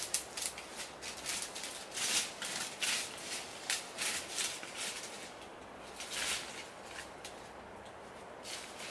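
Footsteps crunching through dry leaf litter and brushing against undergrowth on a slope, a run of irregular crackles and rustles.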